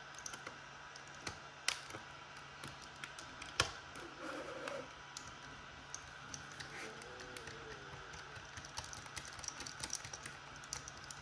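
Scattered light clicks and ticks of a small Phillips screwdriver and tools working screws out of a DJI Mini 2 drone's plastic shell, over a faint steady hum.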